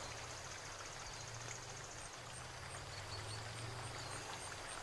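Faint outdoor ambience: a low steady hum under a faint high chirp that repeats evenly a few times a second.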